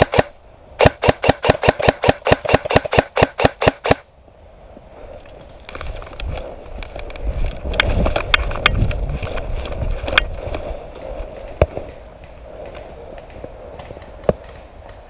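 Airsoft rifle firing a fast string of sharp shots, about five or six a second for some three seconds, starting about a second in. Then a stretch of rustling noise near the microphone, with a few single shots later on.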